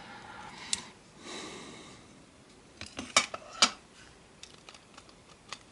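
Handling noise from an opened-up Sony TCD-D3 DAT Walkman: light clicks and clinks of its plastic and metal parts. There is soft rustling in the first two seconds and a few sharp clicks about three to three and a half seconds in.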